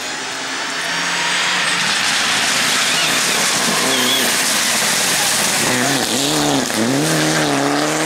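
Mitsubishi Lancer Evolution IX rally car's turbocharged four-cylinder engine heard onboard at speed under a loud rushing noise. In the second half the revs drop and climb again several times.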